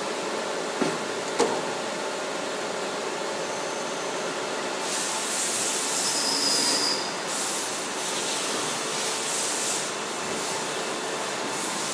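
Steady din of large factory machines running, with two sharp knocks about a second in and bursts of high hissing from about five to ten seconds in.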